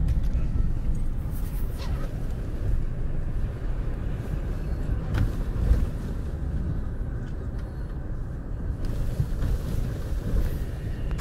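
Vehicle or road-works machinery engine running with a steady low rumble, with a few short knocks.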